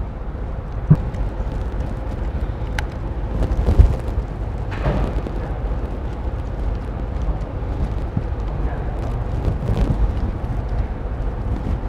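Light rustles and a few faint clicks of cables being pushed through an opening in a robot arm's housing, over a steady low background rumble.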